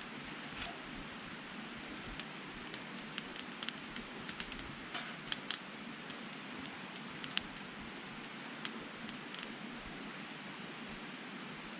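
Wood fire crackling in a folding Picogrill-style fire pit: a steady rushing hiss with irregular sharp pops and snaps, the loudest about seven seconds in.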